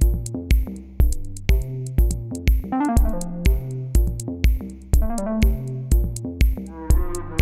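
Electronic background music with a steady beat of about two beats a second under synthesizer notes.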